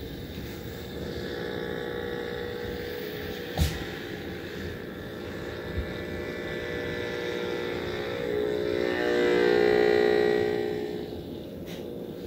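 Electromagnetic interference from a Furman PL-Plus DMC power conditioner, heard as a buzzing hum through the speaker of an Entech wideband powerline and EMI noise analyzer set to radiated noise. The buzz grows louder past the middle as the analyzer is held close to the unit, then falls back. A sharp click about a third of the way in.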